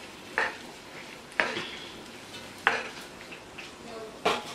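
Wooden spoon stirring diced bell peppers and onions in a pot, four sharp scrapes and knocks against the pot about a second apart, over a faint sizzle of the vegetables sautéing in butter and oil.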